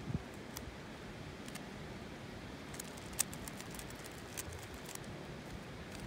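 3x3 Rubik's Cube being turned by hand: scattered light plastic clicks as the layers are twisted, the sharpest about three seconds in, over a steady background hiss.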